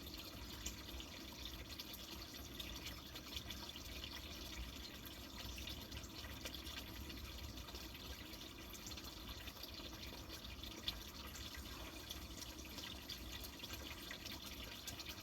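Flowing water trickling and splashing steadily, full of small irregular drips, with one sharper click about eleven seconds in.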